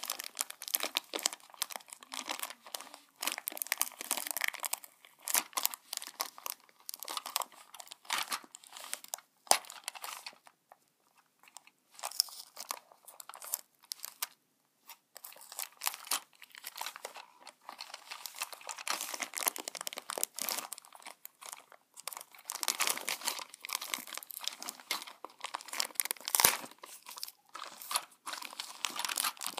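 Plastic packaging of a boxed toy train crinkling and crackling as it is handled and pulled open, in irregular spells with short pauses about ten and fifteen seconds in.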